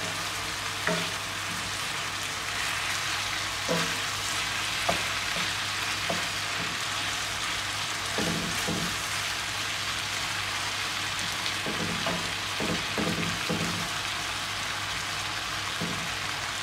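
Chicken livers and gizzards sizzling in a cast-iron skillet while a wooden spoon stirs them, with a steady frying hiss and scattered knocks and scrapes of the spoon against the pan.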